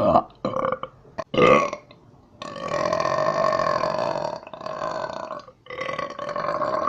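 A person burping: a few short burps in the first two seconds, then a long drawn-out burp from about two and a half seconds in, followed by two more long ones.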